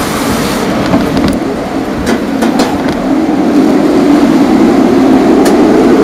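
Typhoon wind howling, with overhead power lines droning in a steady hum that swells louder in the second half; a few faint ticks over the top. Heard from indoors through a window.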